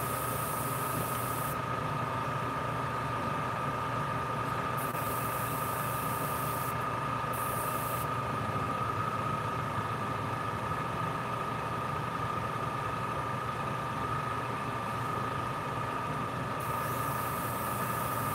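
Airbrush hissing in several separate bursts as paint is sprayed, over a steady motor hum with a constant whine.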